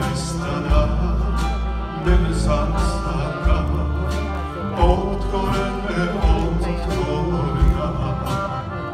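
Live band playing a song: electric guitars, bass, drum kit and accordion, with a man singing into a microphone. Steady beat with regular drum hits over a strong bass line.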